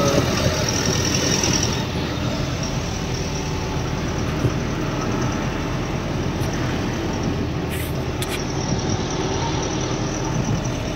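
Eicher Pro 2114XP truck's four-cylinder diesel engine running with road noise while driving, heard from inside the cab as a steady drone.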